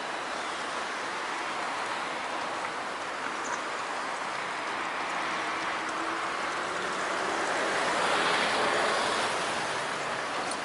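Road traffic passing over a bridge: a steady rushing hiss of tyres that swells as a vehicle goes by about eight seconds in, then eases off.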